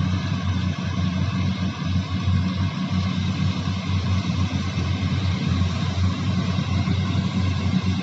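Combine harvester's diesel engine running steadily with an even low drone.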